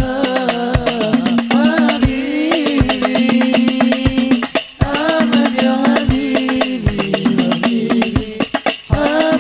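Sholawat devotional singing by a male voice over a hadrah ensemble of rebana frame drums. A deep drum beat falls about every three-quarters of a second, with quick sharp hand strokes between the beats.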